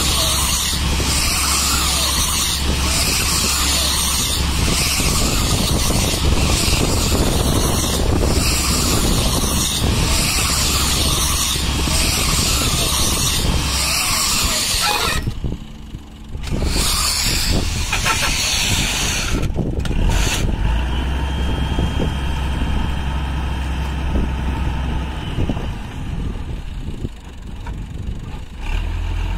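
Tractor engine running steadily while a tractor-mounted bale wrapper turns a round bale, with a rhythmic hiss from the wrapping about once a second. About halfway through the hiss stops, leaving the engine running quieter with a faint steady high whine.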